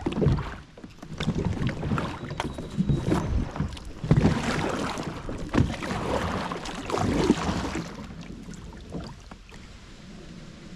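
Kayak being paddled on a river: irregular water splashes and knocks against the hull, easing off near the end.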